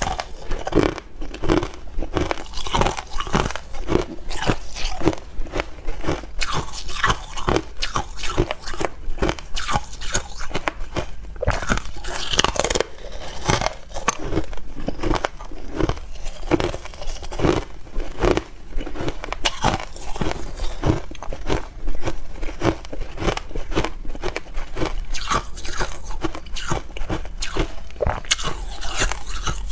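Hard ice being bitten and crunched between the teeth, close to a lapel microphone: a frozen ice bar broken off in bites and chewed, a rapid, continuous run of sharp cracks and crunches.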